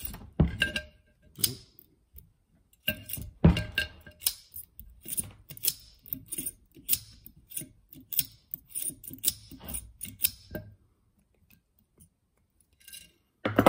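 Safety wire pliers twisting steel safety wire between the bolts of a brake rotor and aluminium hat: a run of quick metallic clicks and rattles, several a second, stopping about eleven seconds in, with one short rattle near the end.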